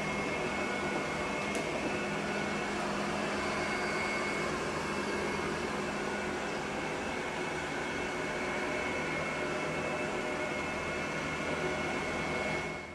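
Robot vacuum cleaner running: a steady whirring hum with a thin, high whine over it.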